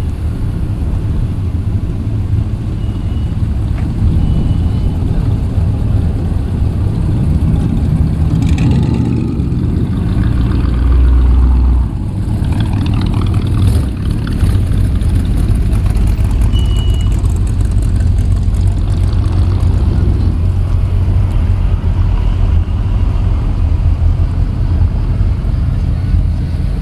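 Pickup trucks and a Jeep Grand Wagoneer driving slowly past one after another, engines running with a steady low rumble. The rumble swells to its loudest about eleven seconds in.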